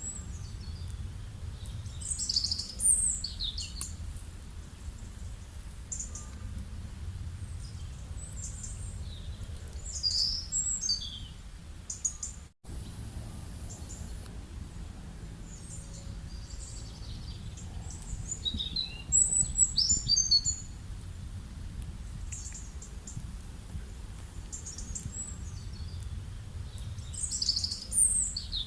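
Small birds chirping in short bursts of high calls every several seconds over a steady low rumble, with a brief dropout in the sound about halfway through.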